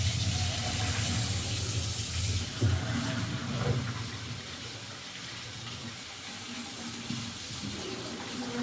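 Water running from a tap into a sink, steady and easing off about halfway through, with a couple of short knocks in the middle.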